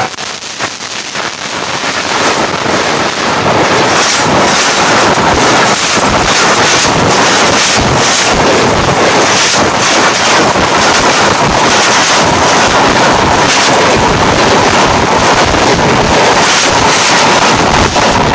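A diesel-hauled express passenger train running at speed directly over a microphone lying between the rails. It is a loud, continuous rush of steel wheels on rail, with regular clatter as the wheel sets roll past, building up over the first few seconds. A thin steady whine comes in about halfway through.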